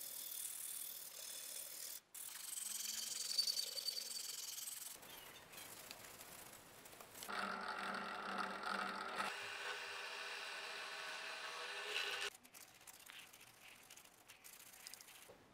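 Workshop sounds of shaping a wooden maple axe handle in short cuts: scratchy rubbing of tools on the wood, then a motor running steadily with a hum for about five seconds past the middle, then quieter handling.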